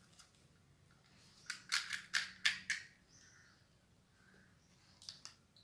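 Crisp, hollow fried puris crackling: one is lifted from the pile and its thin shell cracked open with a thumb, a quick run of sharp cracks with two more near the end.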